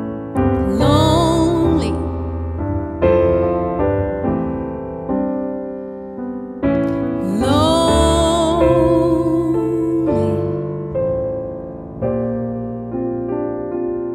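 Grand piano playing a slow, gentle passage. A female voice sings two wordless phrases over it, about a second in and again around seven seconds in, each sliding up into a held note with vibrato.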